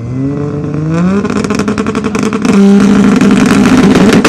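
Mk4 Toyota Supra's 2JZ straight-six being revved through its exhaust: the revs climb over about a second, then are held high with a fast, rhythmic stutter.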